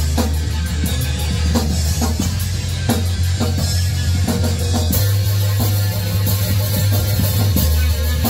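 A rock band playing live in a rehearsal room: electric guitar and drum kit with cymbals, over low held notes that change about five seconds in and again near the end.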